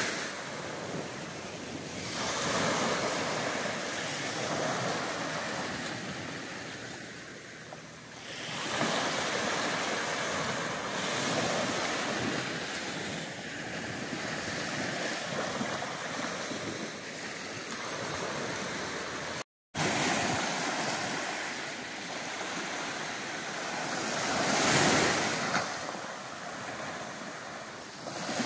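Small sea waves breaking and washing up onto a sandy beach, swelling and easing in repeated surges, the loudest a little before the end. The sound cuts out for a split second about two-thirds through.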